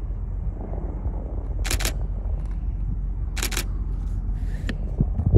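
DSLR camera shutter firing in two short bursts of about three rapid clicks each, about a second and a half apart, over the steady distant low rumble of the four-jet carrier aircraft flying overhead.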